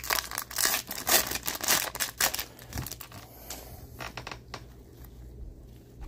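Foil wrapper of a 2021-22 Upper Deck Series One hockey card pack being torn open and crinkled, loud for about the first two seconds. Softer rustles and a few clicks follow as the cards come out, dying away by the end.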